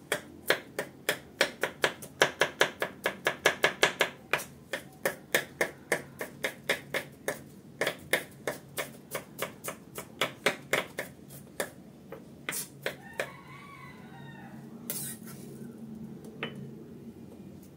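Kitchen knife mincing garlic and shallots on a wooden cutting board, quick even chops about four a second, stopping about twelve seconds in. A few seconds later the blade scrapes across the board as the mince is gathered up.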